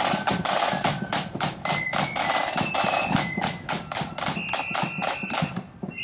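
Marching flute band playing: side drums beat a fast rhythm under high held flute notes. The drumming breaks off near the end.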